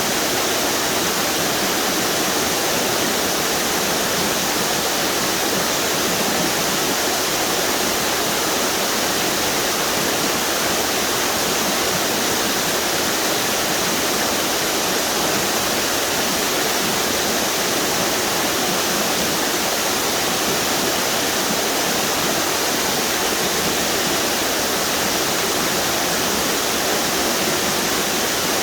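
A series of small river waterfalls on the Duck River: water pouring and splashing steadily over rock ledges, a constant even rush with no change.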